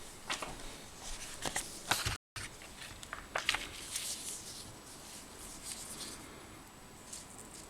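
Scattered small clicks, taps and rustles of objects being handled close by, busiest in the first four seconds and quieter after, with a brief silent gap just after two seconds in.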